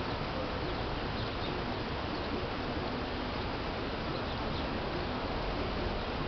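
Steady outdoor background noise, an even hiss with a few faint high chirps now and then.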